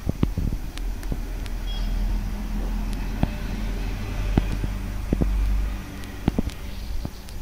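Two cats chewing and crunching on scraps, heard as scattered sharp clicks. Under them runs a low rumble that swells and drops away about six seconds in.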